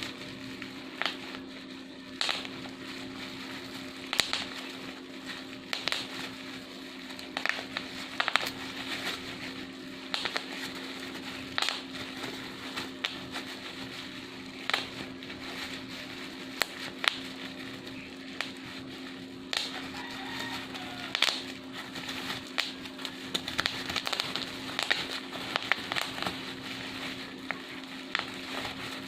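Bubble wrap being squeezed and popped by hand: irregular sharp pops, a few every couple of seconds, with fine crackling between them, over a steady low hum.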